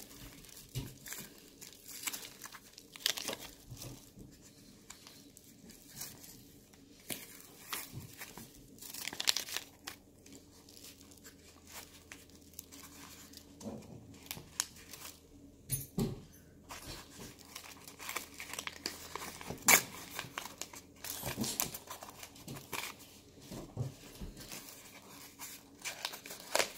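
Brown packing paper crinkling and tearing as it is unwrapped by hand from a small item, in irregular crackles with a sharper one about three-quarters of the way through.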